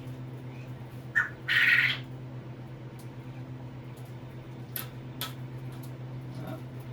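Quail calling: a short note about a second in, then a louder harsh squawk lasting about half a second. Two sharp clicks follow later, over a steady low hum.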